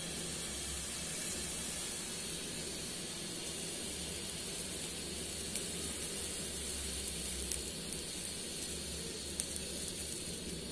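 Gas stove burner hissing steadily under an empty aluminium kadai that is heating up, with a low hum beneath and a few faint ticks.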